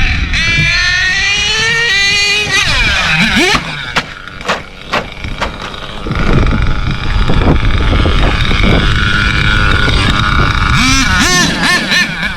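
HPI Savage X4.6 nitro RC truck's small two-stroke glow engine revving up and down as it is driven, with a rising rev at the start and quick bursts of throttle near the end. A few sharp knocks come about four to five seconds in.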